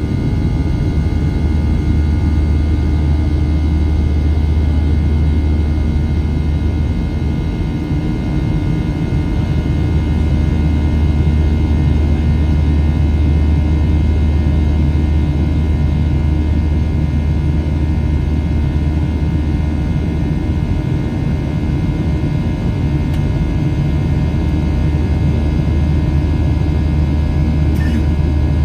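Boeing 737-700's CFM56-7 jet engines heard from inside the passenger cabin: a steady, loud low rumble with an even layer of whining engine tones above it, holding constant throughout.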